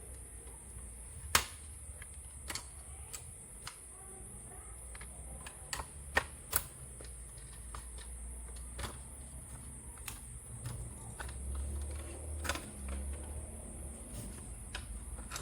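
Irregular small clicks and taps of laptop parts and plastic casing being handled and pried during disassembly, over a steady high hiss. The loudest clicks come about a second in and around six seconds in.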